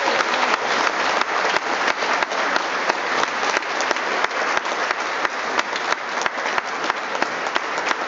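Audience applauding steadily, with sharp individual claps from people close by.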